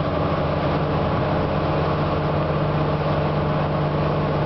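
Tow boat's engine running at a steady speed, a constant low drone, over the rushing hiss of the wake water.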